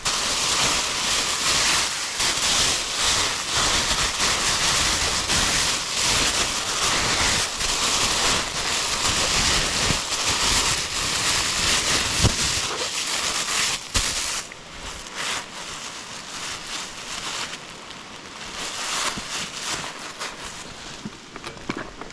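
Rain and wind rushing steadily, easing off about 14 seconds in.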